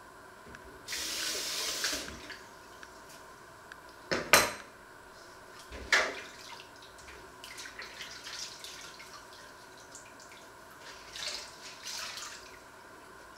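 Dishes being washed by hand in a steel kitchen sink. The tap runs for about a second, starting about a second in. Pots and dishes then knock together twice, near four and six seconds, the first knock the loudest, followed by smaller clinks and splashes.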